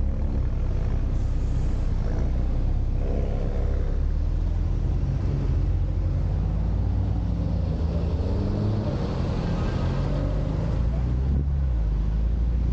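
Car engine running with a low rumble, its pitch rising and falling a few times as it speeds up and slows.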